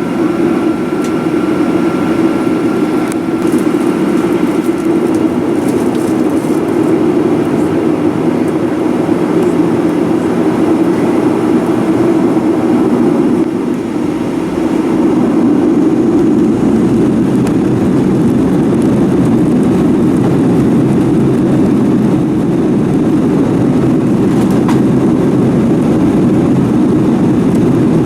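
Boeing 737-900ER's CFM56-7B jet engines running, heard from inside the passenger cabin as a steady low rumble. It dips briefly about halfway through and then comes back a little louder.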